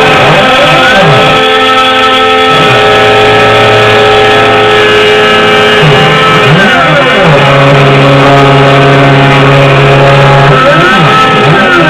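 Loud background music: steady held tones with sweeping notes that rise and fall over and over.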